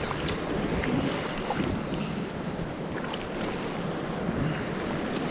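Choppy shallow seawater sloshing and splashing around a wading person's legs, with wind buffeting the microphone.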